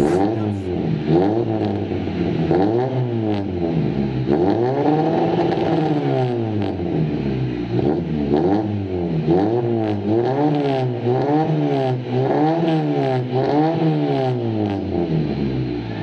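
1993 Toyota Corolla's four-cylinder engine revved repeatedly through an aftermarket stainless full exhaust with a four-into-one header. A few slow, drawn-out revs come first, then quick throttle blips about once a second.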